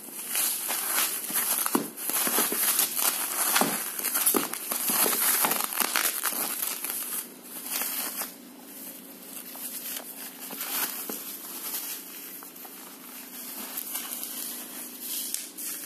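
Bubble-wrap packaging crinkling and rustling as it is pulled off a phone box, dense for the first seven seconds or so, then giving way to quieter, sparser handling of the cardboard box.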